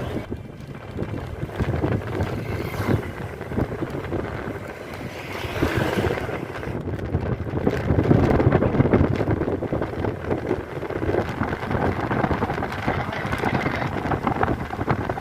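Wind buffeting the microphone over a rumbling, rushing noise of travel, loudest about eight seconds in.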